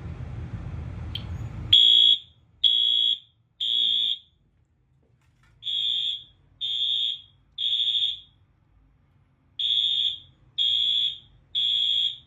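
A fire alarm system's sounders go into alarm, beeping a high tone in the temporal-three evacuation pattern: three groups of three beeps, with a pause after each group. They were set off by a test of the hallway smoke detector. A steady rushing noise before the first beep stops as the alarm starts.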